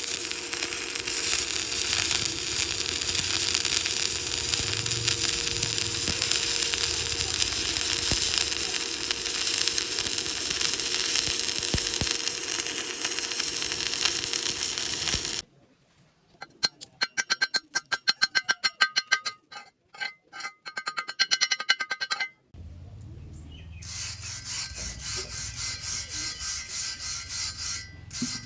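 Stick-welding arc crackling and hissing steadily, then cutting off suddenly about halfway through. A quick run of sharp metallic strikes with a ringing tone follows, then a steadier rasping noise near the end.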